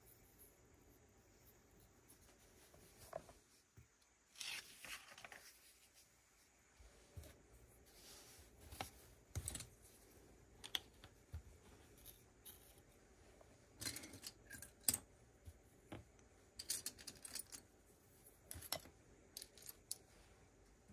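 Plastic Lego bricks being handled and pressed together: scattered light clicks and rattles of small pieces, with a short rustle about four seconds in.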